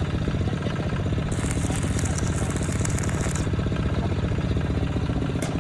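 A small engine running steadily at an even speed, with a high hiss that comes in about a second in and stops about two seconds later.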